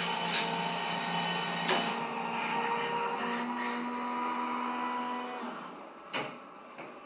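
Hot drinks machine dispensing hot chocolate, its motor and pump whirring steadily with a change of pitch partway through, then stopping about five and a half seconds in; a sharp click follows.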